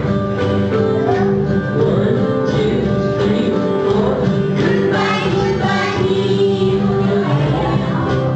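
Music: a song with singing over instrumental accompaniment.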